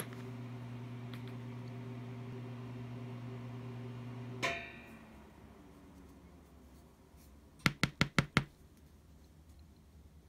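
A steady low hum that cuts off with a sharp, briefly ringing click about four and a half seconds in. Near the end comes a quick run of five light knocks, each sharp and short.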